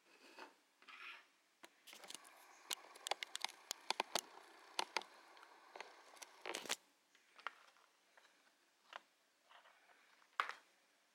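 Stiff plastic blister packaging crackling and clicking as it is handled, with a quick run of sharp clicks in the first half and a few scattered ones later.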